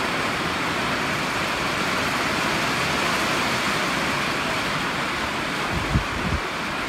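Steady rain and wind of a thunderstorm, an even rushing hiss. Two brief low thumps about six seconds in.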